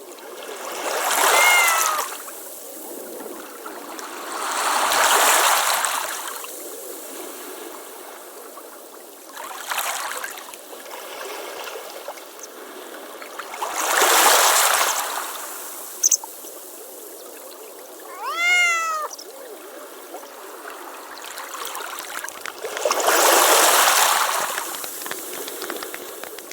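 A cat meows twice, once about a second in and once near the three-quarter mark, each a short call that rises and falls in pitch. Between the meows come four loud swells of rushing noise, each about a second and a half long, over a steady hiss.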